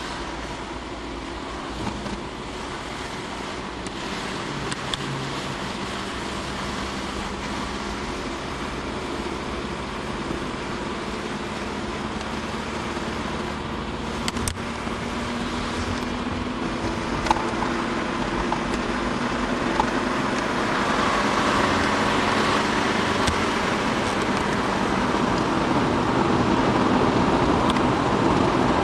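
Car engine and tyre noise heard from inside the cabin while driving, getting steadily louder and higher in pitch in the second half as the car picks up speed. A few short sharp ticks are heard along the way.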